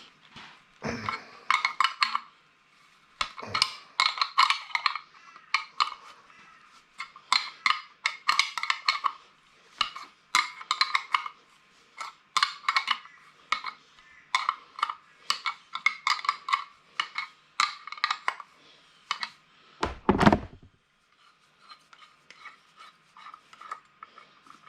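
A metal wrench clicking and clinking in repeated short runs as pressure gauges are screwed into a new air-compressor regulator. One heavier thump about twenty seconds in.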